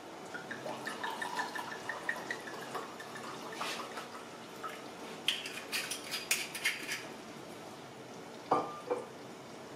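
Red wine glugging from a bottle into a wine glass in a quick, even run of gurgles over the first few seconds. Then a cluster of light clicks and glassy clinks as the bottle is handled, and one sharp ringing clink about two-thirds of the way in.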